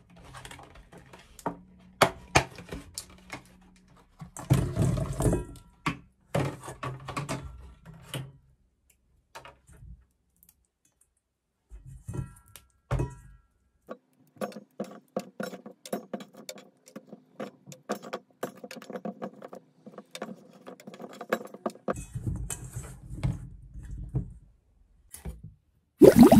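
Handling noise of cherry tomatoes being tipped from a plastic clamshell pack into a stainless steel bowl: the plastic pack clicks and crackles, and the tomatoes clatter and knock against the steel, most densely about four to five seconds in. Near the end the bowl is set down in the sink with a few knocks.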